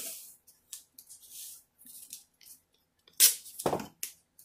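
Blue painter's tape being pulled off its roll in a series of short rasping rips, the loudest and longest about three seconds in.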